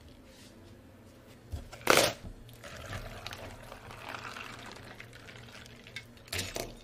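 Matcha milk tea poured from a container into a large plastic cup over tapioca pearls, a steady rushing pour lasting a few seconds. A sharp knock comes just before the pour begins, and another short clatter near the end.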